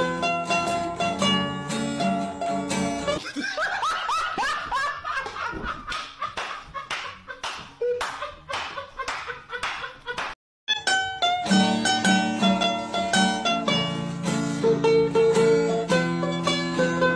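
Background music on a plucked string instrument, with a stretch of laughter over a steady beat in the middle. The sound cuts out briefly about ten and a half seconds in, then the plucked tune comes back.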